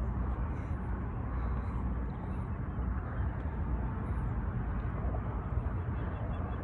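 Steady low outdoor rumble, even throughout with no distinct events.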